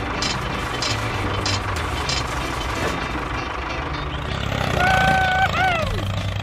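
Dubbed heavy-vehicle engine running steadily for a toy combine harvester, with short repeated beeps in the first two seconds. About five seconds in, a held pitched tone comes in and bends downward at its end.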